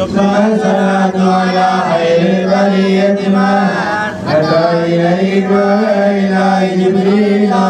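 Men chanting Arabic Mawlid poetry, a drawn-out, melismatic melody sung without a break, amplified through microphones.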